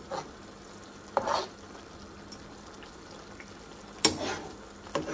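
A metal spoon stirs beef mince and Greek yogurt in a frying pan, scraping across the pan three times. The loudest scrape comes about four seconds in. A low, steady sizzle runs underneath.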